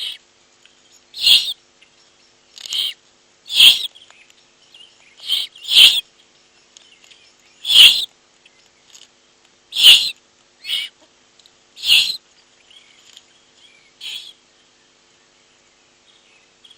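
Owlets giving a series of rasping, hissing begging calls. Each lasts about half a second and they come irregularly, every second or two, around a dozen in all, with food just brought to the nest.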